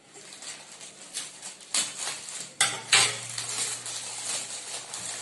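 Plastic wrapping of a saree packet crinkling and rustling as it is cut open with scissors and peeled back. There are a few sharp snaps between about two and three seconds in.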